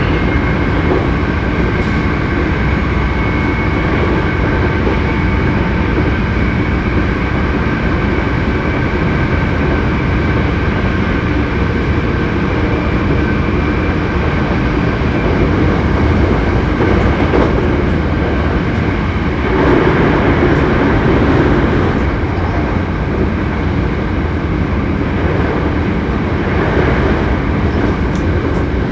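Hankyu 7300-series electric train running at speed, heard from inside a car that is known for an unusual running noise. The running noise is continuous, with steady high whining tones over it and a louder stretch about two-thirds of the way through.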